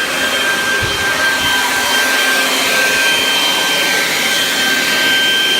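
A small motor running loud and steady: a high whine over a rushing hiss.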